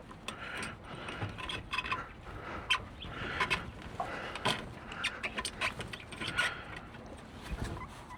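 Handling noises as a fuel-line fitting is worked into a freshly cut rubber fuel hose: irregular clicks and scrapes several times a second.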